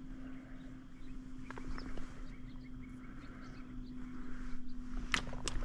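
Birds calling across a marsh: many faint, short chirps and calls over a steady low hum, with one louder, sharp call about five seconds in.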